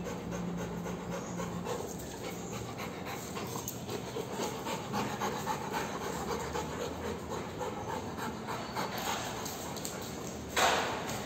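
A Siberian husky and a rottweiler panting, a quick, steady rhythm of breaths, with one short, loud sound near the end.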